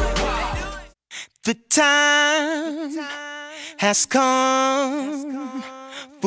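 Hip-hop backing music ends about a second in, followed by a short silence, then a solo singing voice holding long, wavering notes with no beat or accompaniment.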